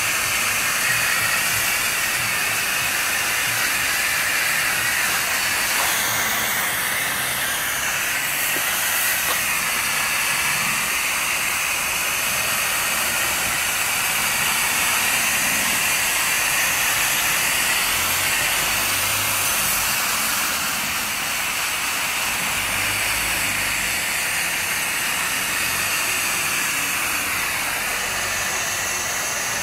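Garden hose spray nozzle hissing steadily as it mists water over seedling trays.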